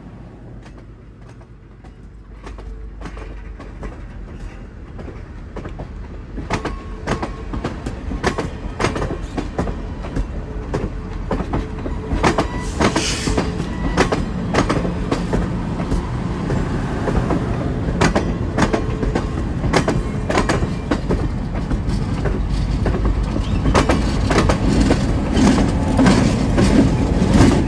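Train rolling by, wheels clicking over rail joints above a low rumble, growing steadily louder.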